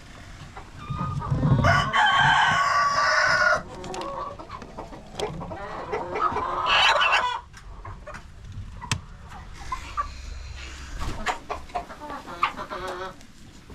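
Chickens clucking, with a rooster crowing in one long call about two seconds in and another loud call around six seconds in.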